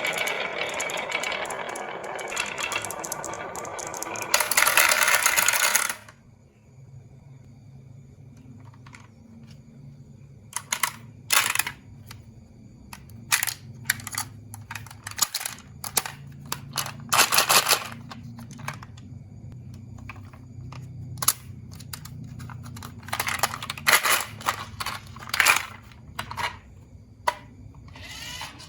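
Marbles rolling and clattering down a wooden HABA marble run: a dense rattle, loudest just before it stops abruptly about six seconds in. After that come scattered single clacks and clicks of marbles knocking on wood.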